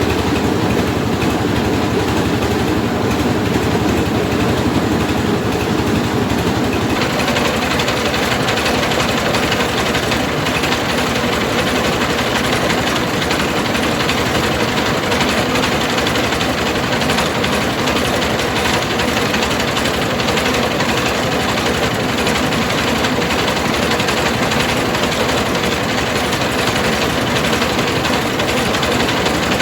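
Mobile rice milling machine running: its engine and milling machinery make a steady, loud mechanical din. The noise becomes higher-pitched about seven seconds in.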